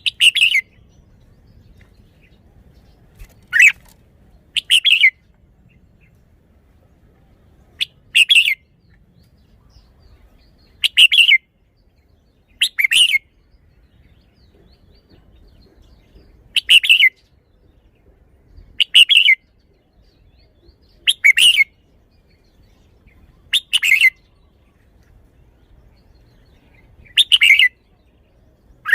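Red-whiskered bulbul singing: about eleven short, loud song phrases, each under a second long, repeated every two to four seconds.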